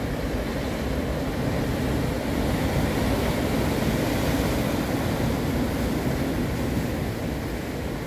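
Sea surf breaking and washing over shoreline rocks, a steady rushing noise with a heavy low rumble that grows a little louder around the middle, then eases.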